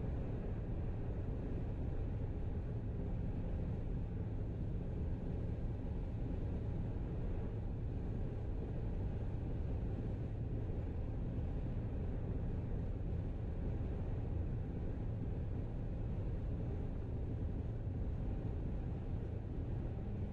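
Steady road and engine noise of a car cruising at highway speed, heard from inside the cabin: a low, even rumble with a faint hum.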